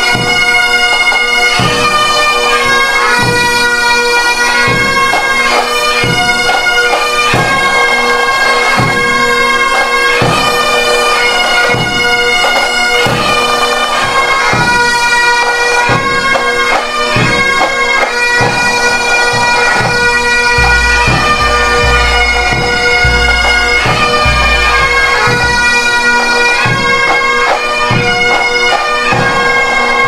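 Bagpipes playing a slow tune over a steady drone, with a regular beat of strokes underneath.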